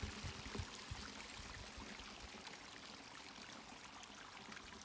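Steady hiss of a thin trickle of water running out of a small pond, with a few low thumps in the first second.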